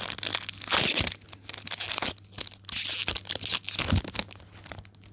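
Foil wrapper of a Pokémon TCG booster pack being torn open and crinkled, in several rustling bursts with short pauses between them.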